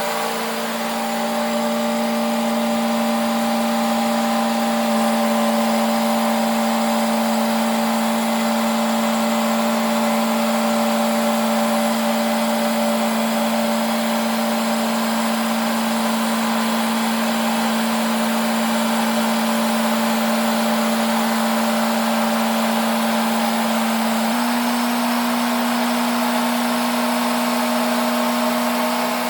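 Sawmill machinery running with a steady, loud hum; its pitch steps up slightly about 24 seconds in.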